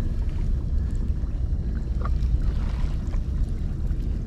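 Wind rumbling steadily on the microphone, with sea water lapping at the hull of a plastic sit-on-top kayak riding at anchor in a chop.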